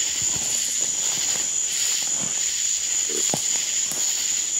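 Steady, high-pitched chorus of night insects trilling without a break.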